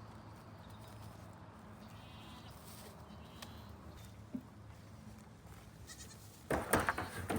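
Goats on a farm: a faint short bleat early on, then a loud burst of knocks and clattering near the end.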